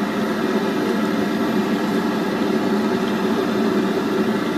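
Steady, even roar of a street stall's wok stove burner, with oil bubbling in the deep-frying wok.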